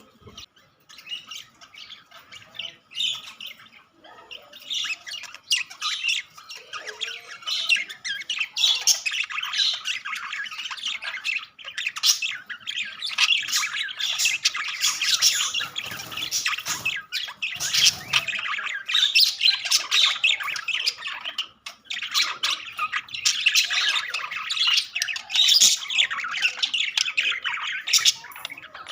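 Several budgerigars chattering and squawking, a dense run of warbles and sharp calls that is sparse for the first few seconds and then continuous.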